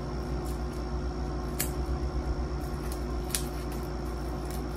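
Scissors snipping at a small boxed package, a few short sharp snips and clicks, the two loudest about a second and a half and three and a half seconds in, over a steady low hum.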